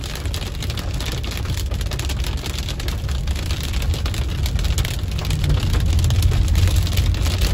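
Heavy rain with large drops hitting the windshield and roof of a moving car, heard from inside the cabin, over the steady low rumble of the car and its tyres on the wet road. It grows a little louder toward the end.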